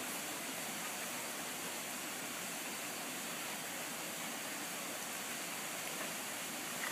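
A steady, even hiss of outdoor background noise with no distinct events.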